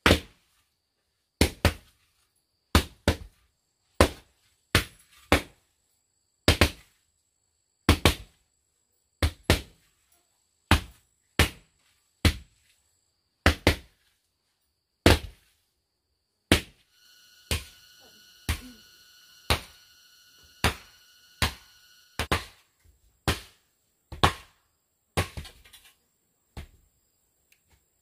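Lengths of thick bamboo pounded down on a damp earth floor to tamp it flat. Dull thuds come roughly once a second, now and then two close together, from two people working at once. Midway a steady buzz with several tones runs for about five seconds.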